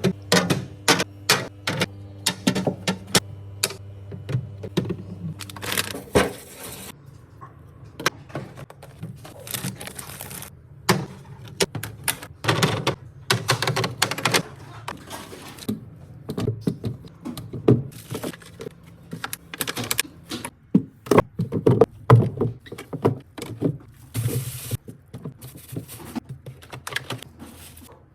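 Containers, bottles and packaged food being set down and slid onto refrigerator shelves while restocking a fridge: a long, irregular series of clicks, taps, clinks and thunks. A low steady hum runs under it for the first six seconds or so.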